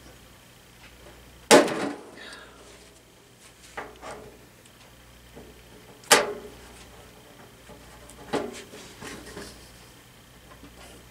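Metal strain-relief pliers and a plastic cord strain-relief bushing knocking against a sheet-metal heater cabinet as the bushing is squeezed and forced into its hole. There are four sharp knocks about two seconds apart, the loudest about a second and a half in.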